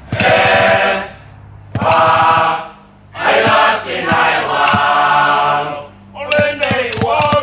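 Samoan choir of village chiefs and orators singing a choral song in short phrases, with brief breaks between them and sharp percussive taps beneath the singing.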